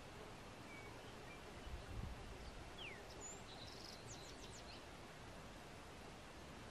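Faint steady outdoor hiss with a few distant bird calls: a short whistle, a falling note about three seconds in, then a quick run of high chirps. A soft low thump comes about two seconds in.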